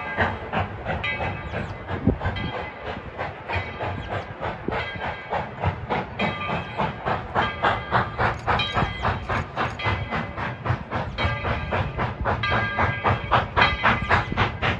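Steam locomotive working, its exhaust chuffing in a quick, even rhythm over a steady hiss of steam.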